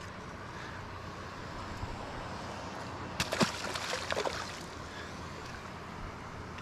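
Water sloshing and lapping under a steady wash of wind and water noise, with a short burst of splashing about three seconds in.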